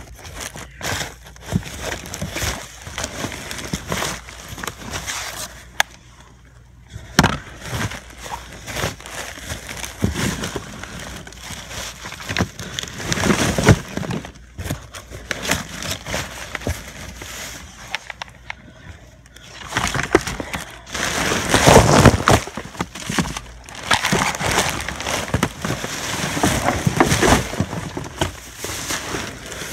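Black plastic trash bags crinkling and rustling, with cardboard and loose rubbish scraping, as hands dig through a dumpster. It comes in irregular spells and is loudest around twenty seconds in.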